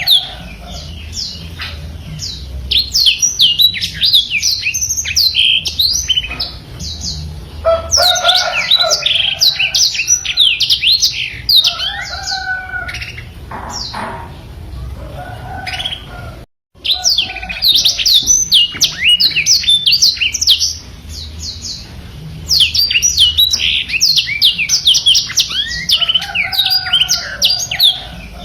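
Black-throated canary (blackthroat) singing a fast, continuous song of rapid high chirps and trills in long phrases, with some lower whistled notes. The sound drops out for a split second about sixteen seconds in.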